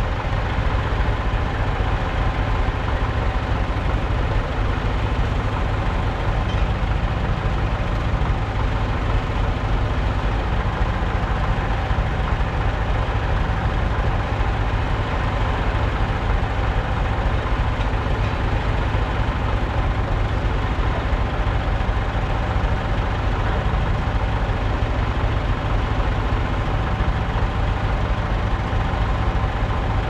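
An engine idling steadily, with a constant low rumble.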